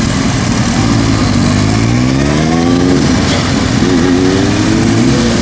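Motorcycle engines running at low speed. One is throttled up, its pitch climbing for about two seconds from a second in, dropping, then rising again near the end.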